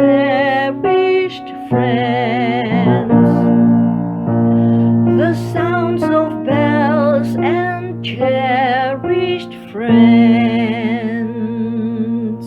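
A singer with strong vibrato sings vocalise phrases over sustained piano chords, ending on a long held note with a final chord near the end.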